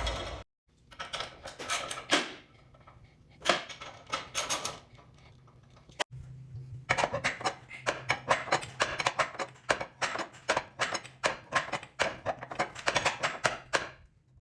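Steel winding bars clicking and clanking in the winding cone of a garage door torsion spring as its tension is let off, with a fast, steady run of clicks over the second half.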